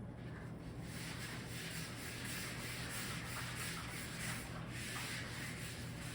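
A board eraser wiping a writing board in repeated scrubbing strokes.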